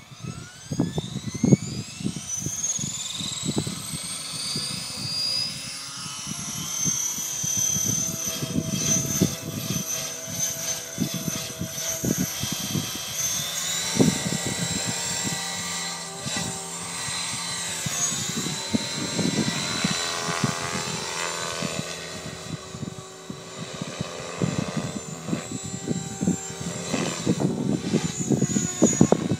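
Align T-Rex 550 electric RC helicopter spooling up, its whine rising steadily in pitch over the first six seconds, then flying with a high whine that shifts in pitch as it manoeuvres. Irregular low buffeting runs underneath.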